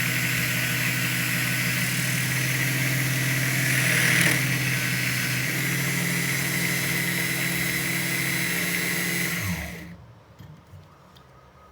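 Small electric motor of a DIY Tamiya tyre lathe running steadily with a harsh hiss over it, which swells briefly about four seconds in. Near the end the motor is switched off and winds down, its pitch falling before it goes quiet.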